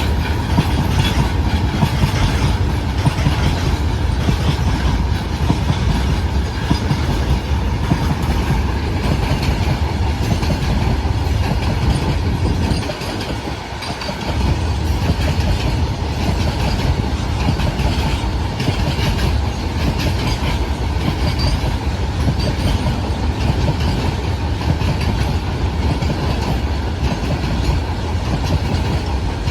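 Freight train of petroleum tank wagons rolling past, its wheels rumbling and clacking over the rail joints, with screeching from the wheels. The rumble dips briefly about halfway through.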